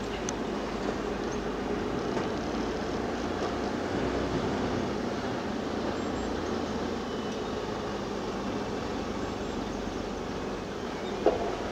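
Mercedes-Benz Arocs tipper truck with a semi-trailer driving slowly, its diesel engine running steadily at low speed. A single short, sharp knock sounds near the end.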